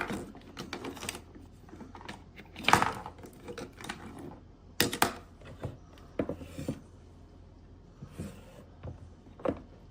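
Objects being handled in a small room: irregular clicks, taps and knocks. The loudest knocks come about three and five seconds in, with another shortly before the end.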